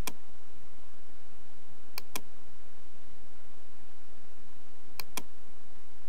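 Computer mouse clicking: three pairs of sharp clicks, at the start, about two seconds in and about five seconds in, over a steady faint hiss.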